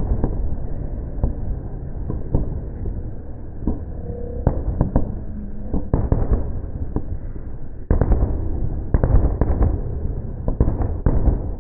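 Fireworks display: a rapid, continuous barrage of bangs and crackles from aerial bursts, growing denser and louder about eight seconds in.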